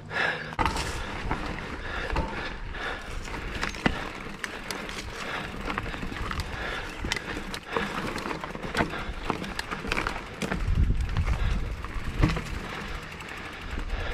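Mountain bike ridden over a rocky trail: tyres rolling and crunching over rock, with frequent sharp clicks and knocks from the bike. A low rumble swells for a second or two about ten seconds in.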